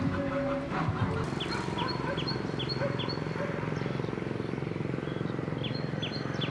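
A bird calling in runs of short falling whistles, four or five at a time at about two or three a second, over a steady low pulsing drone.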